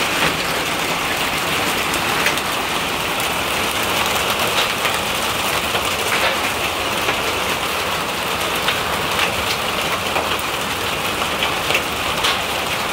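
Hail and heavy rain pelting corrugated translucent roof panels overhead: a dense, steady patter with frequent sharper strikes from individual hailstones.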